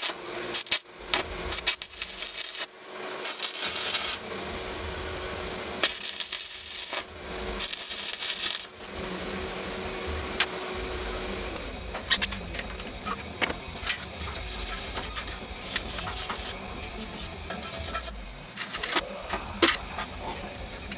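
Arc welder crackling in about five short bursts of a second or so each as steel scrap parts are welded together. After that come scattered sharp metal clicks and knocks as the steel pieces are handled on a steel welding table.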